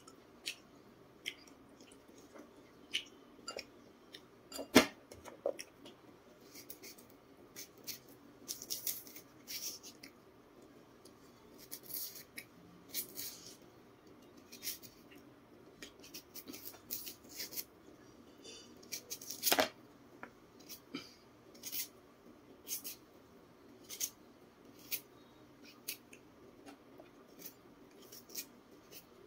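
Knife blade scraping and cutting through the skin of a raw jicama as it is peeled by hand: a scattered series of short, sharp scrapes and clicks, with two louder knocks, one about five seconds in and one near twenty seconds in.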